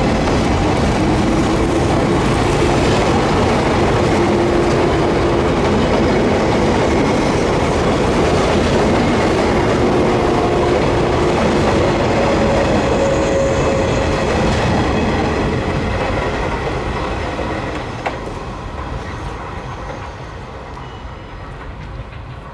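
JR 485 series electric multiple unit pulling out and running past, its wheels and motors sounding with a few steady tones over a broad rumble. The sound holds loud, then fades over the last several seconds as the train draws away.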